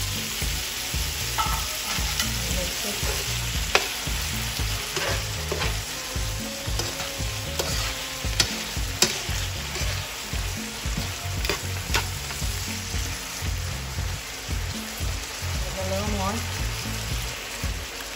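Shrimp, garlic and bell peppers sizzling in a frying pan as coconut milk is added and stirred in. A utensil clicks and scrapes against the pan several times over the steady sizzle.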